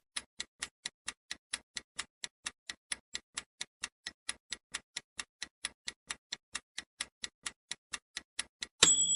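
Clock-ticking timer sound effect, even ticks about four a second, ending in a short high bell ding as the answer time runs out.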